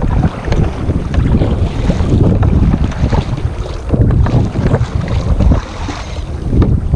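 Wind buffeting the microphone on a sea kayak, a loud rumbling noise, with irregular short splashes of water against the boat.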